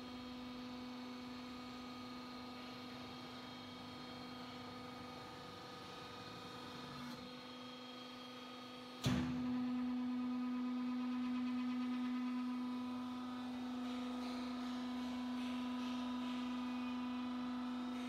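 Vertical paper scrap baler's hydraulic power unit running with a steady, pitched hum. About halfway through there is a sharp clack, after which the hum is louder.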